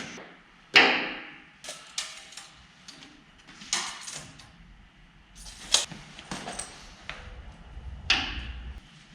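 About seven sharp knocks at uneven intervals, each ringing briefly.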